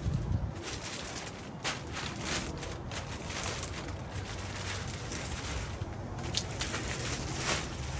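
Clear plastic bag rustling and crinkling while an aluminum radiator is pulled out of it, with sharp crackles now and then and a brief low bump at the start.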